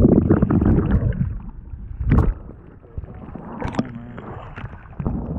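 Muffled water churning and splashing heard through an underwater camera as a hooked trout thrashes near the surface, loudest in the first second. Then a quieter rushing wash with two sharp knocks, one about two seconds in and one near the four-second mark.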